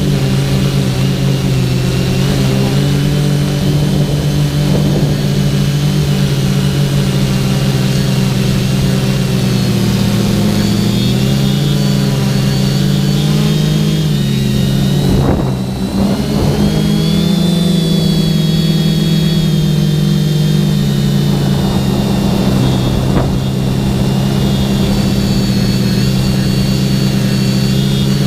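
TBS Discovery quadcopter's four brushless motors and propellers whining in flight, heard from on board, the pitch rising and falling with the throttle, with a brief drop and surge about halfway through.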